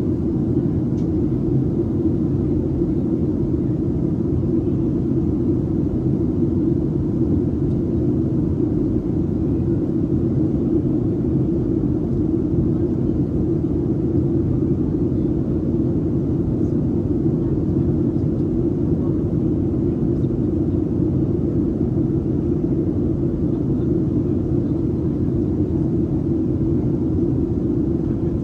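Steady low cabin roar inside a Boeing 737-700 airliner on approach: engine and airflow noise from its CFM56-7B turbofans and the fuselage, even and unchanging.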